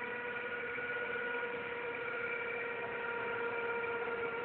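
A 16 hp diesel engine driving a seaweed baling press's hydraulic pump, running steadily with an even hum.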